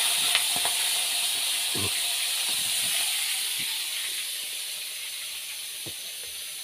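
Shrimp frying in hot oil in a wok: a steady sizzling hiss that slowly grows fainter, with a few light clicks of the spatula on the wok near the start.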